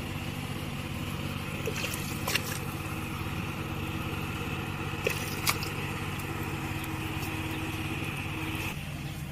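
Small longtail outboard engine on a wooden sampan, running steadily at low speed. A few sharp knocks come about two seconds in and twice around five seconds.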